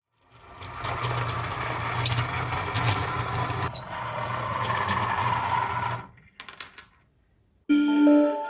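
A motor-driven machine running with a steady low hum, a rattle and scattered clicks for about six seconds, then cutting off suddenly; a few faint clicks follow. Music with held, bell-like tones starts near the end.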